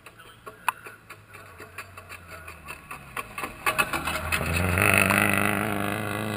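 Rally car at speed on a gravel stage approaching and passing close by. A quickening run of sharp cracks grows louder, then the engine swells to its loudest about five seconds in.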